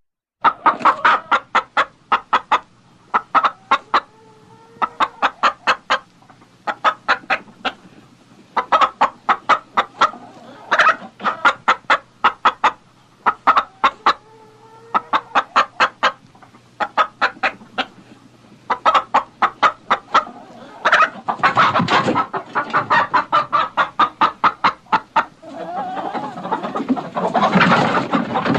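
Hen clucking in quick runs of short, sharp clucks, several a second, with brief pauses between runs. From about two-thirds of the way in, the clucking turns denser and overlapping.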